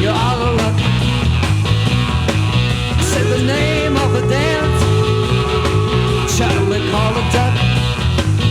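A 1960s garage rock band recording with drums, bass and electric guitar keeping a steady beat, while melodic lines bend up and down in pitch over it.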